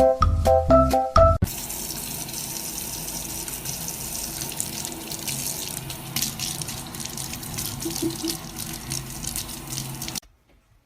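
A short burst of music with marimba-like notes, then a steady rush of running water that cuts off suddenly near the end.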